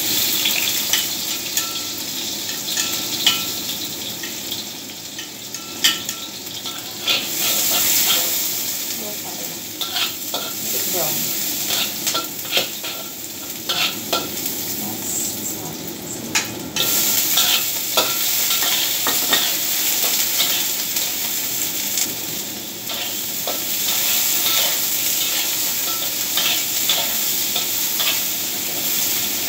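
Oil sizzling steadily in a wok during stir-frying, with a wok spatula scraping and clicking against the pan many times. Chopped ingredients go in first, and sea cucumber pieces are in the wok near the end.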